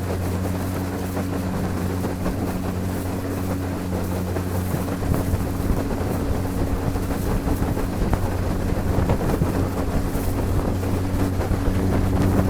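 Small aluminium boat's motor running steadily under way, a constant hum, with wind buffeting the microphone and water rushing past the hull.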